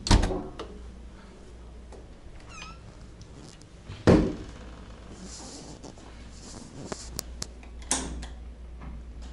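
A minibar fridge's glass door thumps shut, then a short squeak, a second door thump about four seconds in, and a few light-switch clicks near the end.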